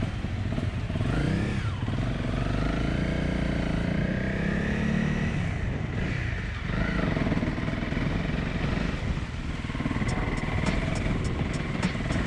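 Off-road vehicle engine revving, its pitch rising and falling over a steady low rumble as it works through mud. About ten seconds in, a quick, even high ticking starts, about three ticks a second.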